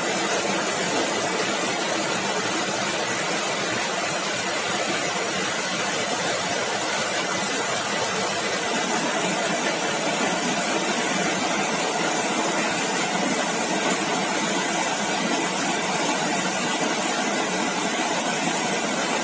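Swollen, fast-flowing river rushing after heavy rain, a steady, even noise.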